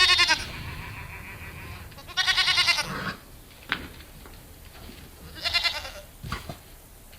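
Goats bleating in quavering calls: one ending just as it opens, another about two seconds in and a third about five and a half seconds in, with a few faint knocks between.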